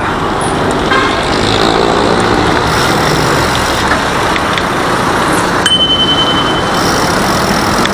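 Road traffic noise from cars and trucks, heard while riding along a highway. A thin, steady high tone sounds for about a second and a half a little past the middle.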